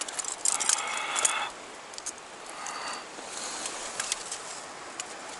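Rustling and clicking for about the first second and a half, then the steady rush of flowing river water with a few faint clicks.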